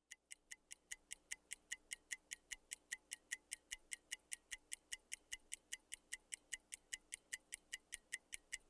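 Clock-ticking countdown timer sound effect, a steady run of sharp ticks at about four a second, marking the time left to pick an answer.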